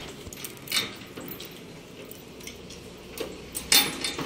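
A ring of keys jangling and clicking against a brass padlock as it is handled, with a few short metallic clicks, the loudest near the end.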